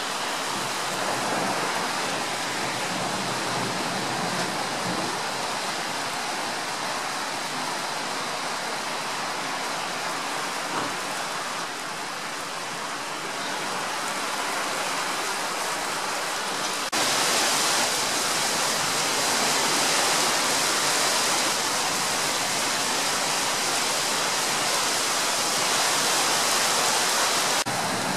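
Rain falling in a steady downpour, an even hiss with no distinct drops. About seventeen seconds in it abruptly becomes louder and brighter.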